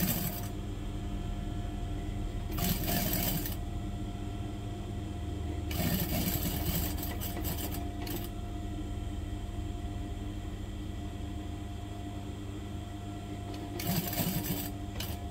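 Sewing machine stitching in four short runs, one of them about two and a half seconds long, over a steady low hum: a binding strip is being sewn around the neckline of a silk and brocade áo sẩm.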